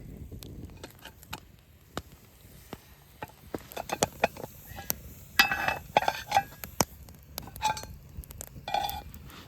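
Metal cookware and utensils clinking together several times in the second half, each clink ringing briefly, over scattered small crackles and clicks.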